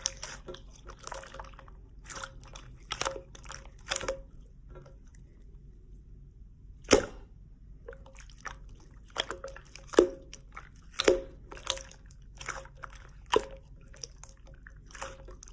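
Slime being squeezed and pressed in the hands, giving sharp wet clicks and pops at irregular intervals, with a brief lull about five seconds in.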